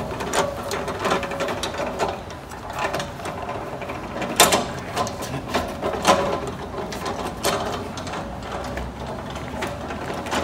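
Hand-crank winch on a SpitzLift truck-bed crane being cranked to lower its lifting strap, its gears and ratchet clicking unevenly throughout.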